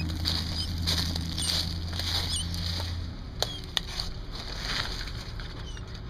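A few short high chirps from baby birds over rustling and handling noise, with two sharp clicks a little past halfway. A steady low hum runs underneath and cuts off about three seconds in.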